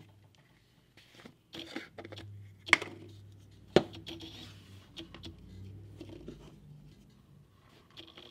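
A small screw-top jar being twisted open and handled on a workbench, with two sharp clacks about three and four seconds in as the jar and its lid are set down. Soft rubbing and rustling follow as a piece of leather is handled.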